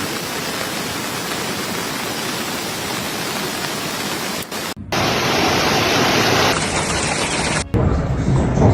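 Steady rushing hiss of a rainstorm, broken by edits: the sound changes abruptly about halfway through and again about three quarters in. Near the end a deeper rumbling sound takes over.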